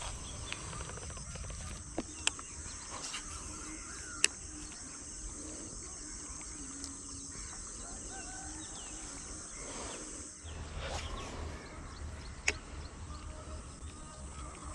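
Outdoor morning ambience by a pond: a steady high insect drone with scattered bird chirps, broken by a few sharp clicks.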